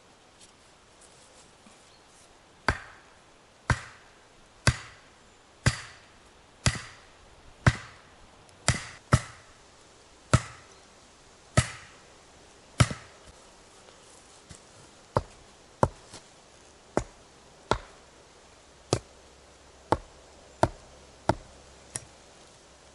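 Axe blows on wood: about twenty sharp strikes roughly a second apart, starting a couple of seconds in. The early strikes ring briefly; later ones are duller and come a little faster.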